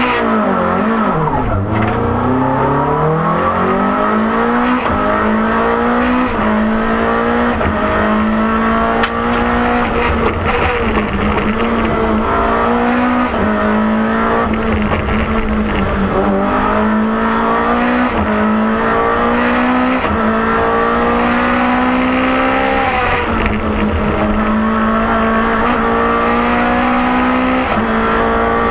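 In-cabin sound of a BMW M3 E30 Group A rally car's four-cylinder engine, loud throughout. It dips in pitch as the car pulls away from a standstill about a second and a half in, then accelerates hard, the engine note climbing in each gear and dropping briefly at each quick upshift, over and over.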